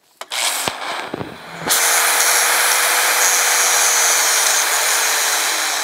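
Electric angle grinder spinning up with a few short knocks as it touches the work, then grinding steadily and loudly from about two seconds in, with a high whine over the grinding. The disc is cutting into a rusted, seized end plate on a Ski-Doo Elan axle shaft.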